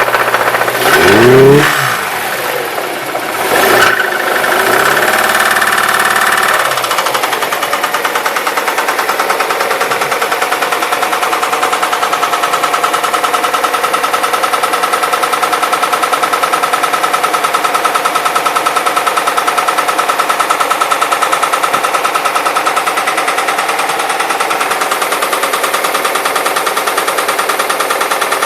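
Car engine revved briefly a couple of times, then settling to a steady run with a rapid, even knocking. The owner hears this knock from a cold start, and again when throttle is applied.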